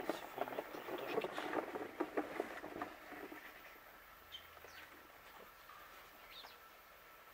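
Plastic bucket scraping and clattering as it is lifted by its handle, with shoes scuffing on dry gritty dirt, lasting about three seconds. Then quieter, with a few short, faint, high bird chirps.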